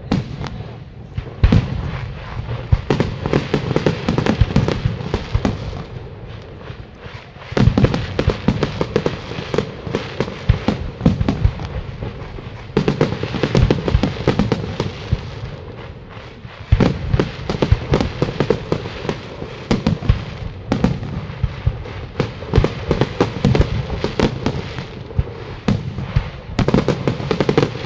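Aerial firework shells bursting in a continuous barrage: repeated sharp bangs with crackling. The barrage thickens into denser volleys several times.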